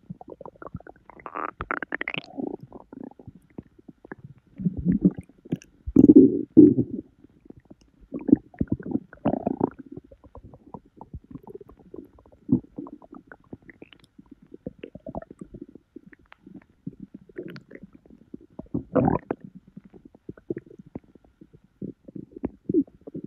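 A bloated human stomach and intestines gurgling and rumbling in irregular bursts as they digest a heavy junk-food meal. There is a rising squeal about two seconds in, the loudest rumbles come around six seconds in, and another sharp gurgle comes near the end.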